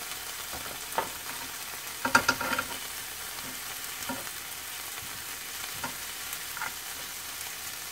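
Bacon and Spam sizzling in a frying pan with a steady hiss. Tongs click against the pan as the pieces are placed and turned, with a cluster of clacks about two seconds in and single clicks now and then.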